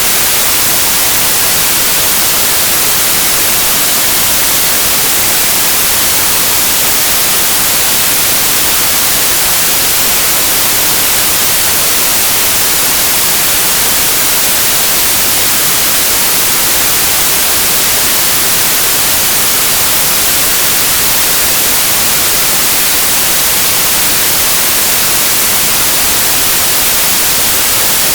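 Steady synthetic white noise: an even, unbroken hiss with its energy strongest in the highest pitches and no changes.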